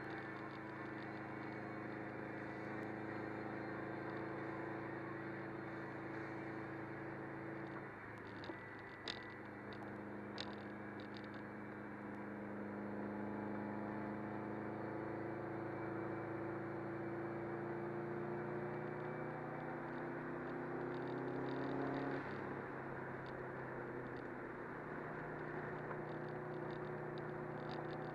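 Subaru WRX's turbocharged flat-four engine and road noise heard inside the cabin while driving, the engine hum rising and falling in pitch with the throttle. A few faint clicks come about a third of the way in.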